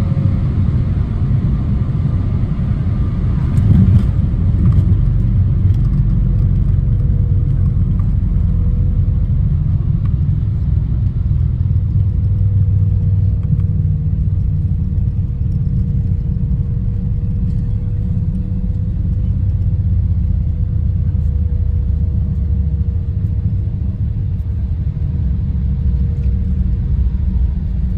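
Cabin sound of an Embraer 175 jet landing: a thump about four seconds in as it touches down, then a steady heavy rumble of the wheels on the runway and the engines through the landing roll as the jet slows with its spoilers up. A thin steady tone runs over the rumble from about six seconds in.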